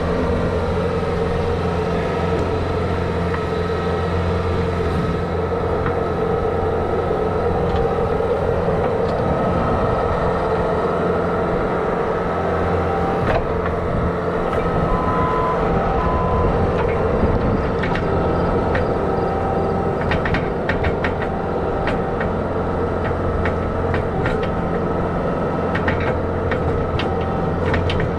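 Bobcat skid-steer loader's engine running steadily under work. In the last third it is joined by a run of sharp clanks and rattles.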